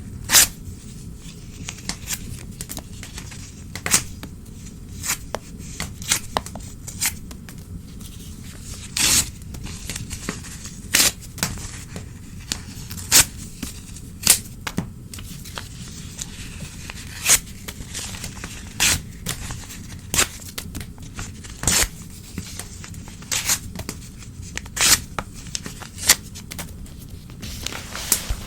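Old newspaper being torn by hand, short sharp rips one after another every second or two, over a low steady background rumble.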